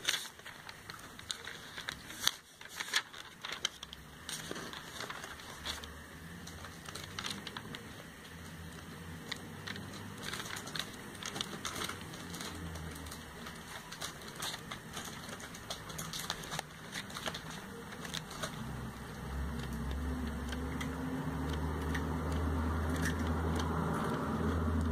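Glossy catalogue pages being flipped quickly by hand, with rapid papery clicks and crackles. A low steady hum rises under it over the last few seconds.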